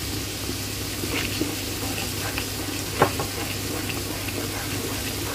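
Garlic cloves frying in mustard oil with a steady sizzle, while a wooden spatula stirs them, scraping and tapping against the pan, with one sharper knock about three seconds in.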